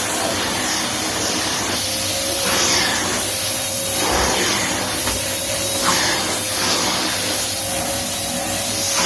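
Household vacuum cleaner running steadily, its motor whine holding one pitch under the rush of air. The airflow hiss swells and fades every second or so as the nozzle moves.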